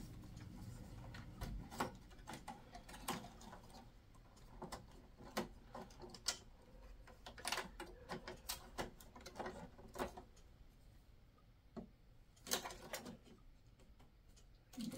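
Faint, irregular clicks and light knocks of hands handling parts and cables inside an open steel computer tower.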